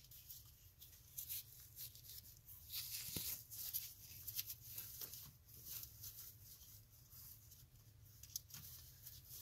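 Faint scratching, rustling and scattered light clicks of hands working among hoses and wiring, cutting a plastic zip tie and pulling it free, busiest a few seconds in.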